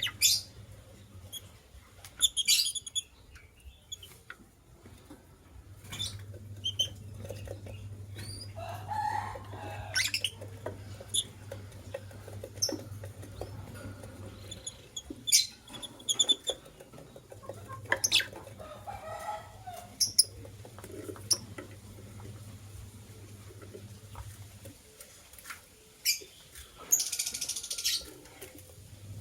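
White lovebirds chirping in short, sharp, scattered calls with small clicks, and a brief rustling burst near the end. A low steady hum comes and goes underneath.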